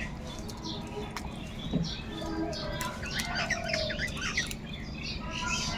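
Crows calling, many short overlapping calls from several birds at once, busiest about halfway through.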